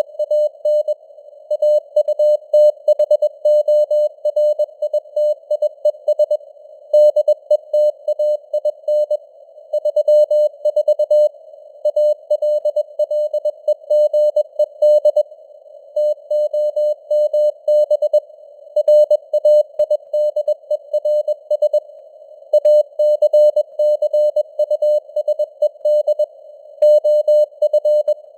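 Morse code (CW) tone at about 21 words per minute: a single steady-pitched beep keyed on and off in dots and dashes, with short pauses between letters and words. It sits in a narrow band of simulated radio hiss, and the signal strength is made to fade up and down.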